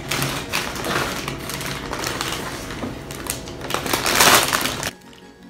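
Crinkling and rustling of foil-lined Doritos chip bags being handled and torn open, loudest about four seconds in, then stopping abruptly near the end.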